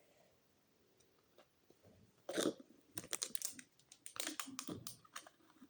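A plastic toy surprise ball being prised open by hand: irregular plastic clicks and crackles in a few short clusters.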